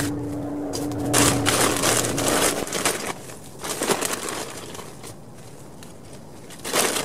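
Rustling and crunching of coleus foliage and potting soil being handled, in irregular bursts, loudest about a second in. A low motor hum fades out about a second and a half in.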